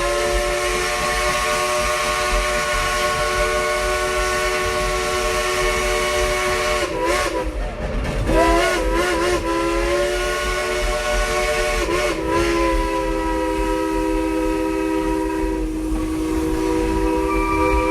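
Steam locomotive whistle blown in one long chord of several tones, its pitch dipping and wavering about seven seconds in and again about twelve seconds in as the whistle valve is worked, over a steady hiss of steam.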